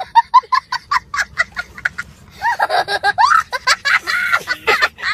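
A young child laughing hard in quick, high-pitched bursts. After a short pause about two seconds in, the laughs become longer and rise and fall in pitch.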